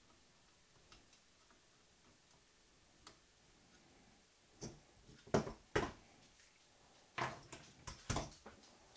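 Scattered sharp clicks and knocks from work on a switching power-supply circuit board: flush cutters snipping component leads and the board being handled and turned over on the bench. A few light clicks come first, and the louder ones cluster in the second half.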